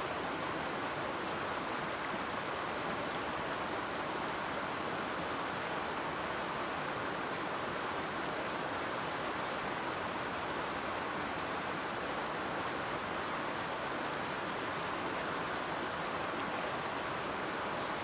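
Shallow, clear river flowing over a stony bed: a steady rush of running water that holds an even level throughout.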